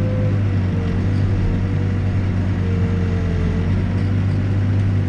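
Backhoe's diesel engine running steadily as it digs, with a tone above the engine note that wavers up and down.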